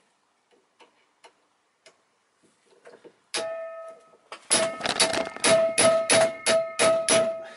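Hammer blows on a hand impact driver set in a seized screw on a throttle body, each strike ringing with a metallic tone. There is one blow about three seconds in, then a quick run of about ten blows, after a few light taps.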